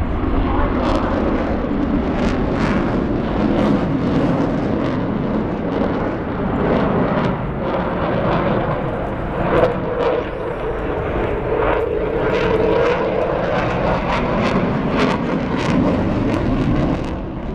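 Eurofighter Typhoon's twin EJ200 turbofan jet engines running loud through a display manoeuvre. The roar drifts slowly higher in pitch and back down, with sharp crackles running through it.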